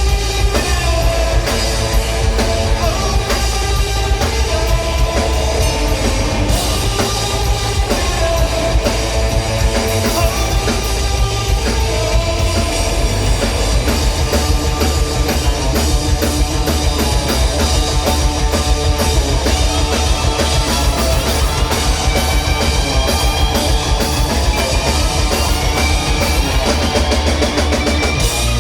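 Live rock band playing a loud instrumental passage, with a full drum kit pounding under guitars and bass and no singing.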